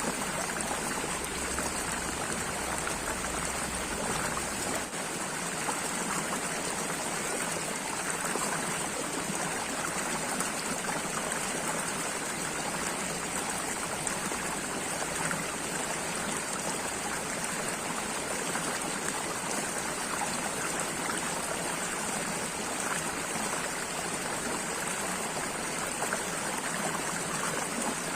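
Steady running water of a flowing stream, an even rush and trickle that does not change.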